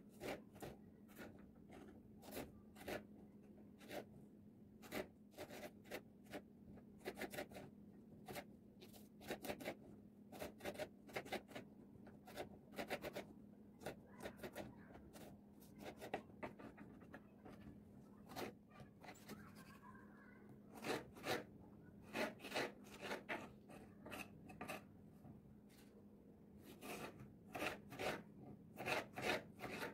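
Kitchen knife chopping garlic cloves on a wooden cutting board, then cutting soft peeled tomatoes: irregular sharp taps of the blade on the board, often two or three a second.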